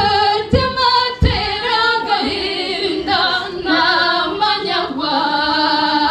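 Voices singing unaccompanied in long, held notes, with a couple of low thumps in the first second or so.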